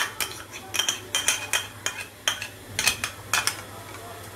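A series of irregular sharp clinks and scrapes of a ceramic dish and utensil against a glass bowl as thick yogurt is scraped out onto fish pieces.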